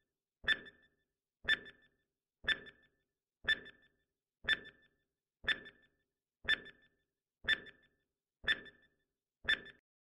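Countdown timer sound effect: ten short ticks, one a second, each with a brief ringing tone.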